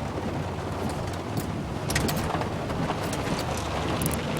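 Truck engine running with a steady low hum while driving through flood water in heavy rain, under a wash of water and rain noise. A few sharp clicks and knocks come about two seconds in and near the end.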